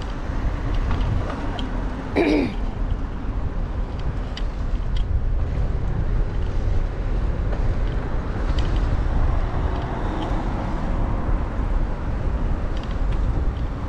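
Steady low rumble of wind on an action camera's microphone and a bicycle rolling over block paving, with a few light clicks. A brief voice sounds about two seconds in.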